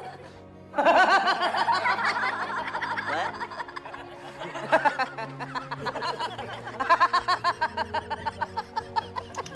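A man laughing in long runs of quick, repeated chuckles: one bout starts about a second in and another comes near the end, with faint low background sound underneath.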